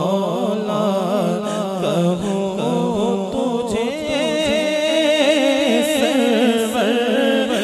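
A man singing a naat unaccompanied through a microphone and PA, in long wavering melismatic phrases with a steady low vocal drone beneath at first.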